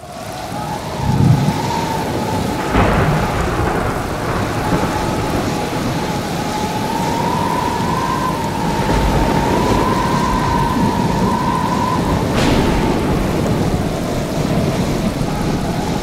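Stormy-sea sound effect: rain and heavy surf in a dense, steady wash, with a high whistling wind tone that wavers in pitch. Thunder rumbles about a second in and cracks sharply twice, near the start and about three-quarters of the way through.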